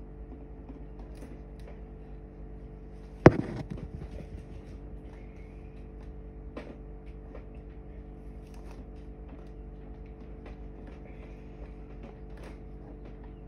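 A single sharp knock about three seconds in, with a short rattle after it, and small scattered clicks of handling over a steady mechanical hum.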